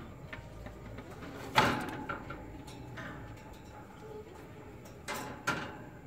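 Two sharp clattering knocks on a wire bird cage, each with a brief ringing tail: one about a second and a half in, the other near the end, with a few small clicks between.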